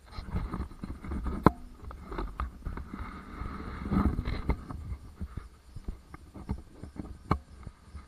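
Salsa Timberjack mountain bike rolling over a gravel and sand trail: tyre rumble with frequent sharp clicks and rattles from the bike jolting over bumps, the loudest knock about a second and a half in.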